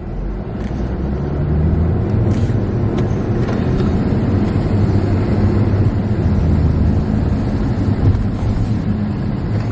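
Car engine and road noise heard inside the cabin as the car pulls away, a low rumble that grows louder over the first second or two and then holds steady.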